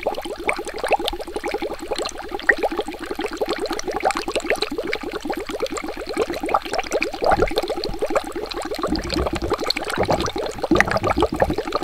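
Bubbling water sound effect: a dense, rapid stream of small bubble pops, with a few deeper gurgles in the second half.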